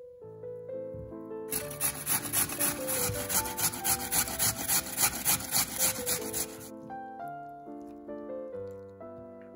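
Raw peeled potato grated on a metal box grater: a run of quick rasping strokes, about three a second, starting about a second and a half in and stopping a little past two-thirds of the way through. Soft melodic background music plays throughout.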